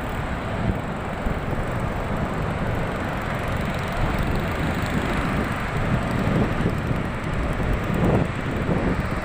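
Wind buffeting the microphone over a steady low rumble, with a few louder gusts near the end.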